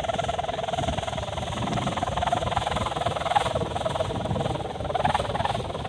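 A large pegon kite humming in strong wind: one steady, slightly wavering hum over low wind buffeting on the microphone.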